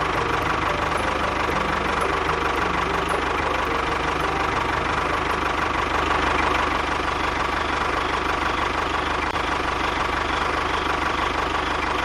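A small motor running steadily at an even pitch.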